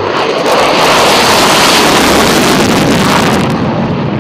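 Fighter jet engine roar: a loud, even rushing noise that swells over the first second, holds, then eases slightly near the end.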